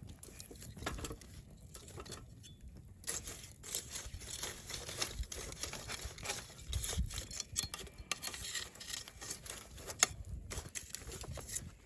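Wood campfire crackling and popping, a dense run of irregular snaps with one sharper pop near the end.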